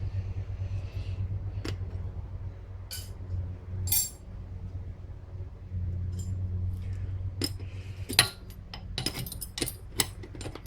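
Wrench and metal hydraulic fittings clinking and clicking in sharp, scattered strikes, coming thicker near the end, over a steady low hum.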